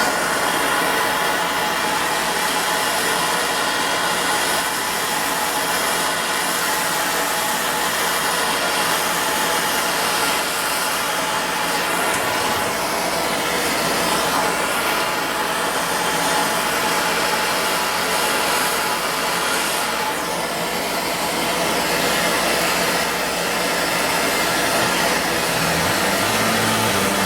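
MAPP gas torch burning steadily with an even rushing noise, heating metal to work lead body filler.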